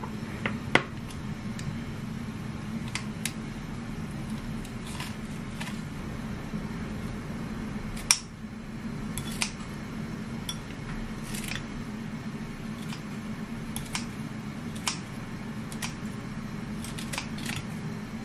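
Kitchen scissors cutting napa cabbage kimchi: a run of sharp, irregular snips, the loudest about 8 seconds in, over a steady low hum.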